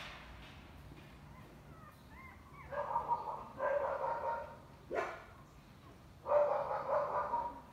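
Newborn husky puppies whimpering in short pitched cries: two close together a few seconds in and one more near the end, with a single sharp click between them.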